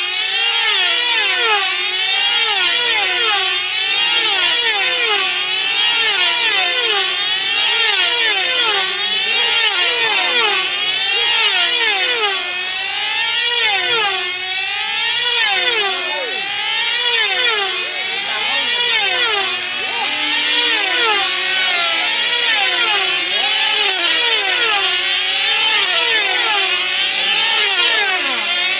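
Several control-line team-racing model aircraft engines running flat out as the planes circle, their whining pitch rising and falling over and over as each plane passes. The engines are small racing diesels.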